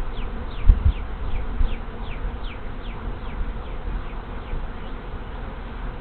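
Honey bee swarm flying in around a hive entrance: a steady hum of many bees, with single bees whizzing close past in short buzzes that drop in pitch, about three a second, thinning out after the first few seconds. A couple of low thumps just under a second in.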